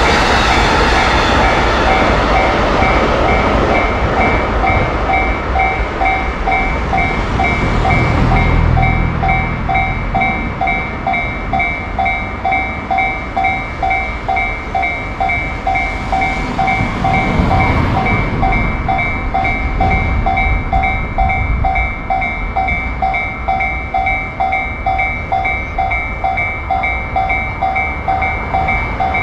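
Japanese railroad crossing alarm ringing its steady, evenly repeated two-tone 'kan-kan' bell while a train runs past over the crossing.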